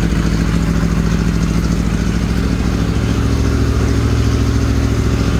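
The inboard engine of a 1901 wooden boat running steadily at a low, even speed, being run after about ten years without being started.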